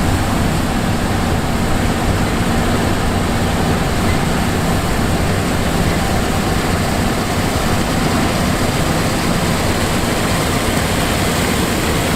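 John Deere S780 combine running steadily: a constant engine drone with a low hum and machinery noise, unchanging in pitch and level.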